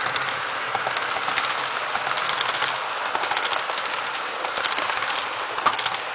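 Model train passenger cars rolling fast along the track, a steady rushing clatter of metal wheels and rails full of small rapid clicks, with one sharper click near the end.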